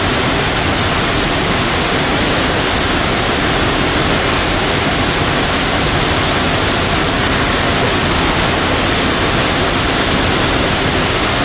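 Loud, steady hiss that does not change, with no voices or tones in it.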